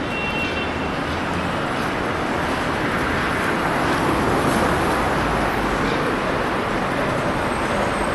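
Steady noise of a moving vehicle: an even, unbroken rushing sound with no clear engine pitch, a little louder past the middle.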